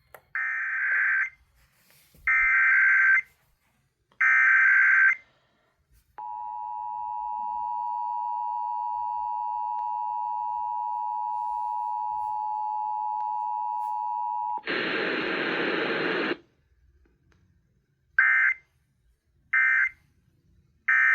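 Emergency Alert System tones over FM radio: three one-second bursts of buzzing SAME header data, then the two-tone EAS attention signal held steady for about eight seconds. After that comes a short burst of hiss, then three brief end-of-message data bursts.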